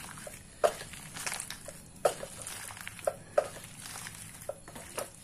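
A hand squeezing and mixing stiff pakodi dough of flour and sliced onions in a steel bowl: irregular short, wet squelches and slaps, about one a second.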